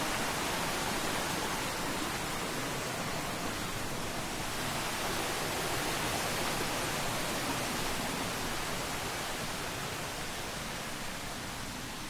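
Steady rushing hiss of outdoor ambience with no distinct events, easing slightly near the end.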